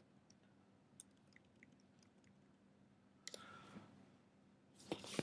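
Near silence, broken by a few faint clicks and two brief rustles, the louder one near the end.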